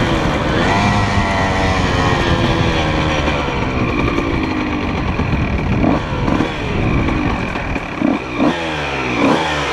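2004 Honda CR125R's 125 cc single-cylinder two-stroke engine with a full Pro Circuit exhaust, revving up about half a second in, then easing off with a slowly falling pitch. Near the end there are a few short throttle blips.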